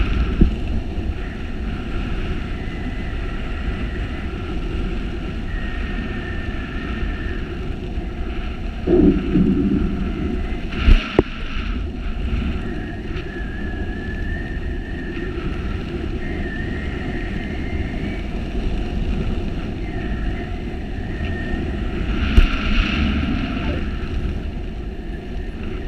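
Wind rushing over a camera microphone during a parachute descent, a steady rumble with louder gusts about nine, eleven and twenty-two seconds in. A faint wavering whistle comes and goes.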